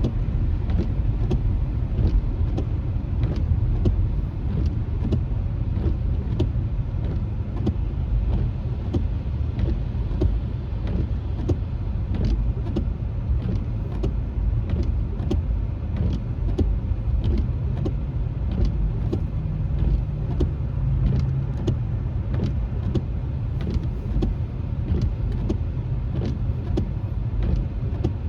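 Steady low road rumble of a car driving, heard from inside the cabin, with frequent irregular sharp ticks of raindrops hitting the windshield.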